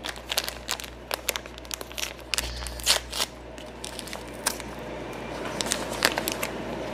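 Brownie mix bag crinkling and crackling as it is handled close to the microphone, with many irregular sharp crackles.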